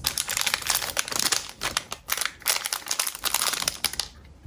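Wrapping crinkling as it is handled, a dense crackle that stops about four seconds in.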